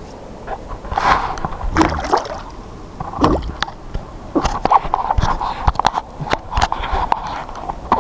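Water splashing and sloshing as a hooked fish thrashes at the surface beside a kayak, mixed with irregular knocks and clicks.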